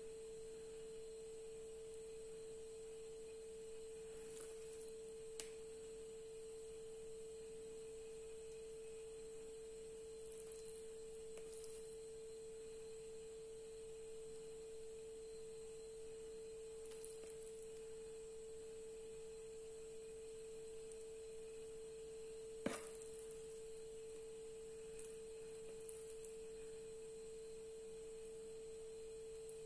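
A faint, steady pure tone, like a constant electronic whine, with two faint clicks of a metal spoon against the air fryer basket, about five seconds in and again near twenty-three seconds.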